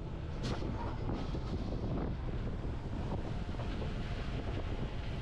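Narrow-gauge Bernese Oberland Railway train running along the track: a steady noise of wheels on rails with a few sharp clicks, the loudest about half a second in.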